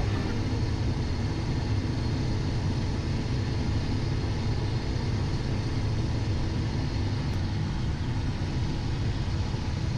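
Steady cockpit noise of a Cessna Citation XL twin-turbofan business jet descending on approach: airflow and engine noise.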